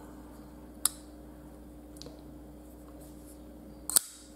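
Ganzo Firebird FH41-CF folding knife: a sharp click about a second in as the blade is folded shut into the handle, then a louder snap near the end as the blade is flipped open on its ball-bearing pivot and locks.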